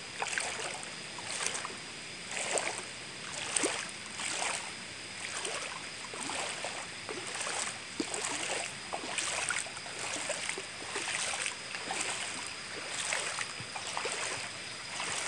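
Feet wading through a shallow river, splashing in a steady rhythm of roughly one to two steps a second over the low wash of the water.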